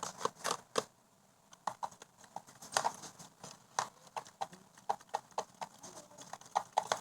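A spoon or spatula stirring a sticky slime mixture in a bowl, making a run of irregular clicking taps with a short pause about a second in.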